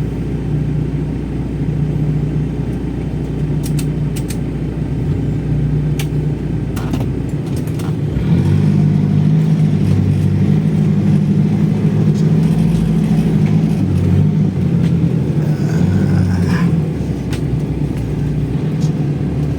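Off-road 4x4's engine running and pulling under load. The engine note rises and strengthens about eight seconds in and eases back near the end, with a few sharp knocks in the first half.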